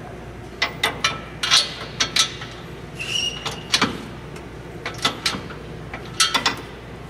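Ratchet wrench tightening the exhaust clamps and hanger bolts under a Jeep: irregular sharp metal clicks, some in quick runs, with a short squeak about three seconds in.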